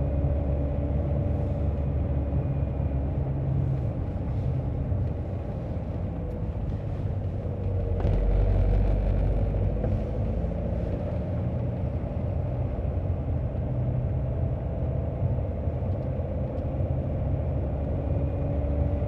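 A car driving: steady low road rumble and engine drone, with a faint tone that drifts slowly up and down in pitch and a brief swell in loudness about eight seconds in.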